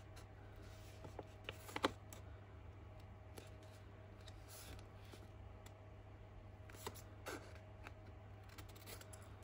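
Scissors snipping through brown paper bag, a few faint, scattered cuts over a steady low hum.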